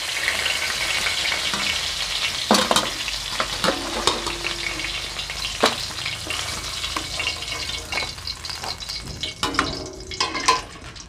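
Koi fish sizzling in hot mustard oil in a metal kadai, with a metal spatula knocking and scraping against the pan as the fried fish are lifted out. A few sharp knocks stand out, and the sizzle dies down near the end.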